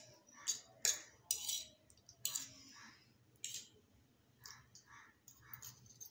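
Hakka noodles being eaten with forks from paper plates: several sharp clicks and slurps in the first three and a half seconds, then softer chewing sounds.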